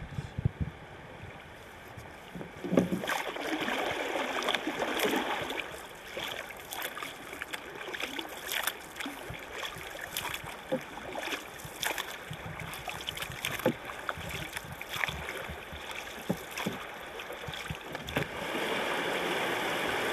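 Paddles dipping and splashing in river water as a boat is paddled, strokes roughly once a second over a steady wash of water. Near the end this gives way to a steadier, louder rush of flowing river water.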